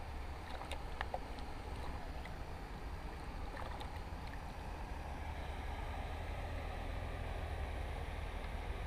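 Steady low outdoor rumble, with a few faint short high sounds about a second in and again near four seconds.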